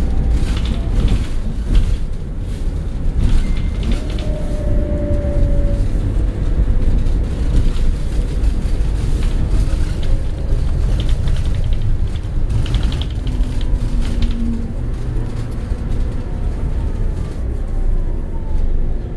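Cabin sound of a Scania K94 coach under way: a steady low rumble of engine and road, with rattles and creaks from the interior and a couple of brief whining tones.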